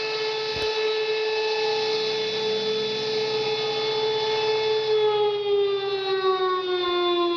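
Civil-defense outdoor warning siren sounding one steady tone with strong overtones. About five seconds in, its pitch begins to fall as it winds down.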